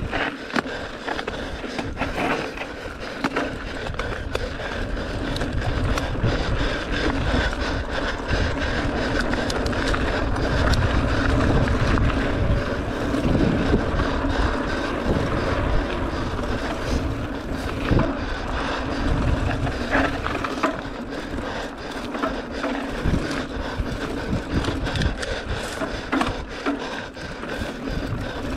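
Mountain bike rolling fast over dry dirt singletrack: the knobby tyre's steady rolling noise on dirt and rocks, with frequent rattles and clicks from the bike over rough ground and wind buffeting the camera microphone.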